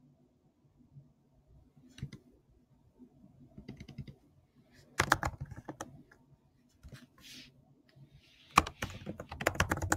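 Typing on a computer keyboard: quick runs of keystroke clicks in several short bursts with pauses between, the bursts about halfway and near the end the loudest.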